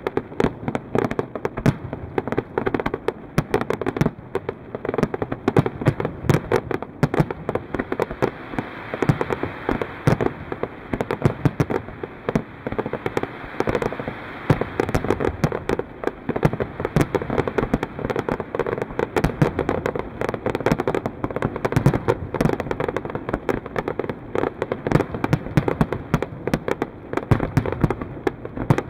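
Fireworks display: a dense, unbroken barrage of aerial shells bursting, many sharp bangs and crackles every second.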